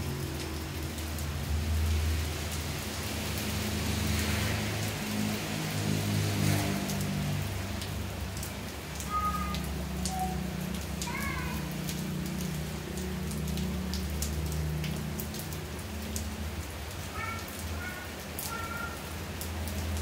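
Steady rain falling on a tiled floor and potted plants. A few short, high chirps come through around the middle and again near the end.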